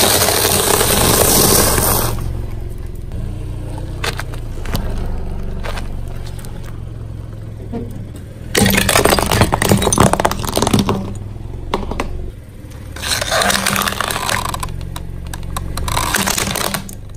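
A car tyre rolls slowly over one object after another and crushes them: crunchy puffed snacks, a jackfruit and hard plastic toys, heard as dense crunching and cracking over a steady low engine hum. The crushing comes in three loud spells: at the start, about nine seconds in, and again near the end.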